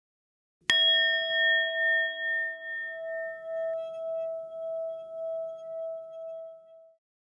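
A single struck metal tone about a second in, like a bell or singing bowl, ringing on with a slow wavering pulse and fading out near the end.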